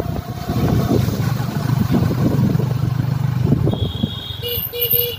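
Motorcycle engine running steadily at road speed, with wind buffeting the microphone. Near the end, a few short high beeps sound in quick succession.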